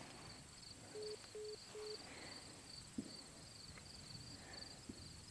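Faint crickets chirping in a steady, even pulse. About a second in, three short low tones sound in quick succession.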